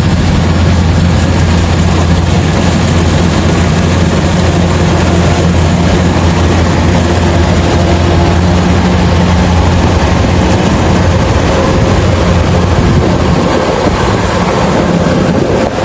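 Rice combine harvester's engine running steadily under load, a loud, even low drone with the rattle of the machine over it.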